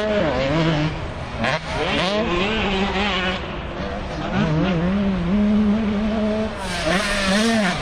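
Motocross dirt bike engines revving on the track, the pitch rising and falling with throttle and gear changes, with sharp climbs about 2 seconds in and near the end and a steadier stretch in between.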